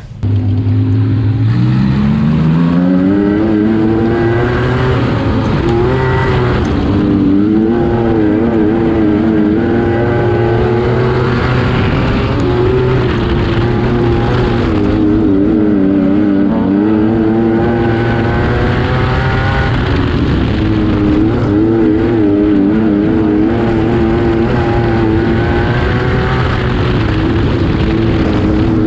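Wingless sprintcar's V8 engine racing flat out, heard from onboard the car. It starts abruptly and climbs in pitch over the first few seconds, then rises and falls repeatedly as the car goes around the dirt track.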